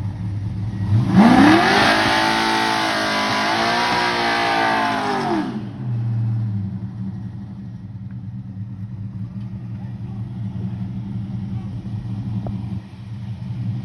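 Fox-body drag car's LSX V8 idling, then revved hard about a second in: engine speed rises, wavers while held high for about four seconds, then drops back to a steady idle.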